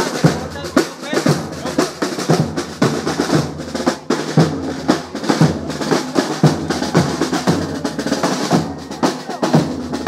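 A percussion group drumming a steady rhythm on snare and bass drums, with snare rolls, and crowd voices mixed in.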